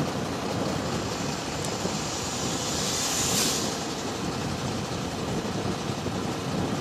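Steady running noise of heavy machinery and vehicle engines, with a brief hiss about three seconds in.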